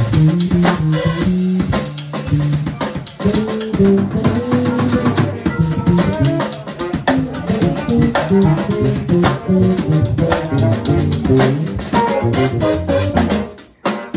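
Live band playing a funk tune: a busy electric bass line and drum kit groove with electric guitar. Near the end the whole band cuts out for a brief stop, then comes back in.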